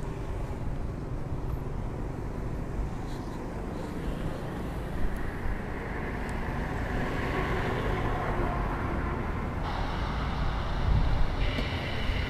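Steady outdoor background noise with a low rumble, growing slightly louder past the middle.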